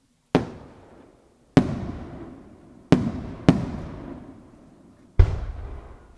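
Aerial fireworks bursting: five sharp bangs at uneven intervals, two of them close together in the middle, each dying away over about a second.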